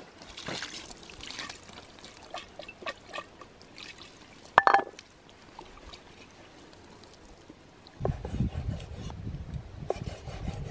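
Water poured from a clay bowl splashing and trickling over a raw turkey as it is rinsed, with drips falling onto a wooden board. About halfway through comes a single sharp ringing knock as the ceramic bowl is set down on the board. Near the end there is low handling noise as a knife cuts giblets on the wooden board.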